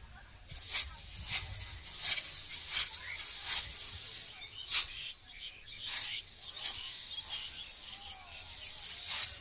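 Ripe rice stalks being cut at the base by hand with a sickle: a crisp, rasping crunch roughly once a second, with the rustle of dry straw.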